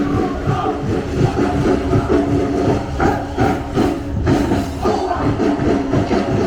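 Live stage music with a steady, rhythmic low beat under sustained held notes.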